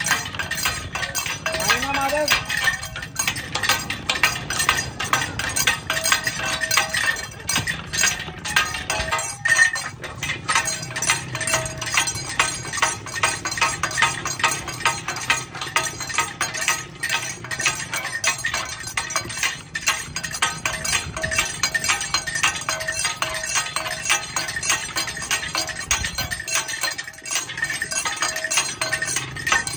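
Sugarcane juice crusher running, its ridged steel rollers crushing cane, with a continuous rapid metallic clinking and jingling.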